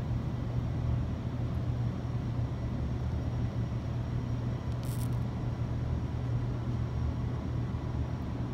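Steady low rumbling background noise with no clear rhythm, and one brief faint click about five seconds in.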